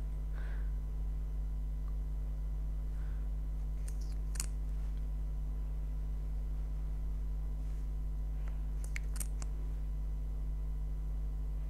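Steady low background hum, with a few faint short clicks about four seconds in and again around nine seconds.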